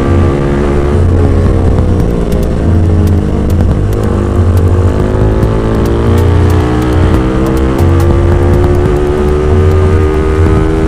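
Motorcycle engine running loud through a Villain Shorty open muffler while riding; the engine pitch dips early and then climbs slowly and steadily as the bike accelerates.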